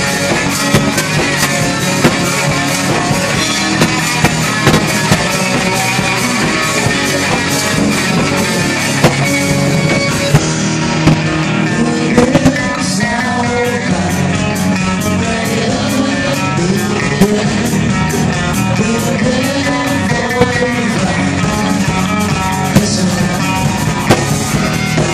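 Rock band playing live, with electric guitar and drum kit, and a wavering pitched melody line over the second half.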